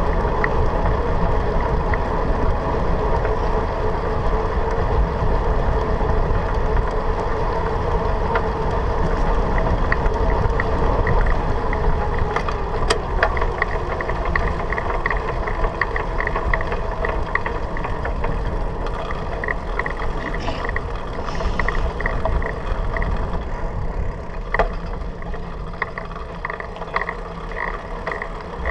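A bicycle rolling along at speed on asphalt, heard from the handlebars: wind rushing over the microphone and tyre noise, with a light, regular ticking joining in about ten seconds in.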